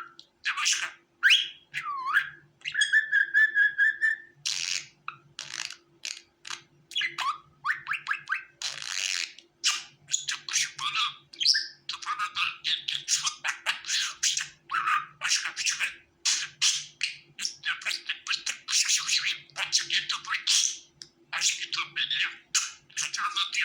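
Budgerigar chattering and warbling: a fast, unbroken run of chirps, squeaks and trills, with a short held whistled note about three seconds in.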